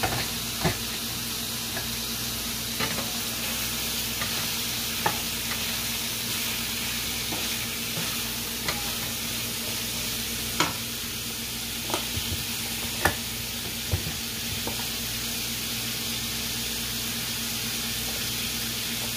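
Chopped carrots, bell pepper, celery and onion sizzling in olive oil in a stainless steel frying pan, with a steady hiss. A wooden spatula stirs the vegetables and knocks against the pan about a dozen times.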